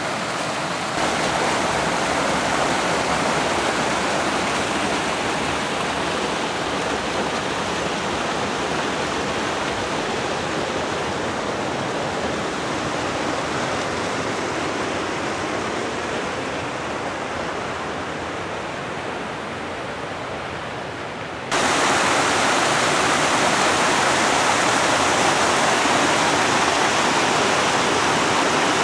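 Small mountain brook cascading over boulders, a steady rush of water. About two-thirds of the way through the sound cuts abruptly to a louder, brighter rush of water.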